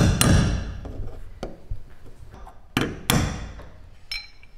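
A hammer tapping a steel punch against the Ford Transit's sheet-metal roof at a roof-rack mounting hole. Several sharp metallic strikes ring briefly: two at the start, two about three seconds in and a lighter one near the end. The taps bend the edge of the misaligned hole down so the bolt no longer touches it.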